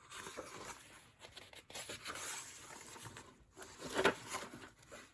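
Paper rustling as the pages of a large book are turned and flipped, with a louder rustle about four seconds in.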